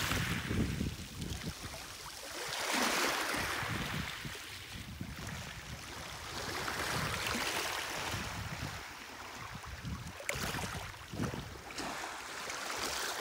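Shallow sea water sloshing and lapping, in washes that swell and fade every two to three seconds, with two sharp clicks about ten seconds in.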